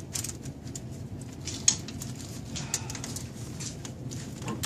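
Scattered, irregular metal clicks and clinks of a ratchet wrench being fitted and worked on the front suspension fasteners, over a low steady hum.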